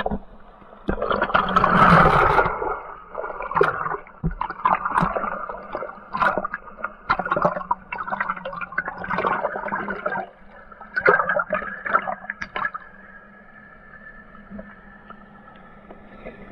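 Whitewater splashing and gurgling against the bow of a plastic kayak, close to the water, with loud bursts of spray about one to three seconds in and choppy splashes after that. It settles to a quieter wash near the end.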